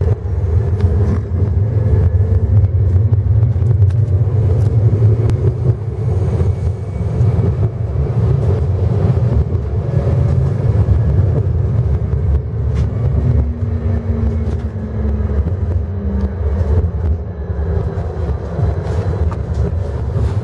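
Tram running along its rails, heard from on board: a steady low rumble of wheels and running gear.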